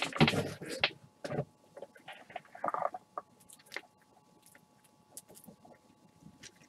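Trading cards being handled and set down on a table: short rustles and taps in the first second and again around the three-second mark, then only faint scattered ticks.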